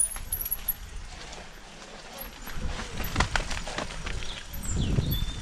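Mountain bike rolling down a rough dirt trail, its frame and parts knocking and rattling over bumps and roots, with a cluster of sharp knocks a few seconds in, over a low rumble.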